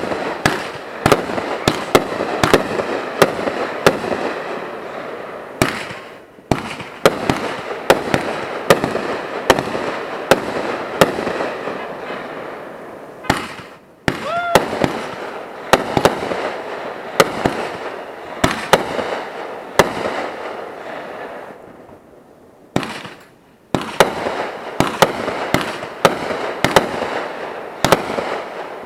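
Consumer aerial fireworks going off close by: volleys of sharp bangs, about two or three a second, with crackling between. The volleys are broken by short lulls three times.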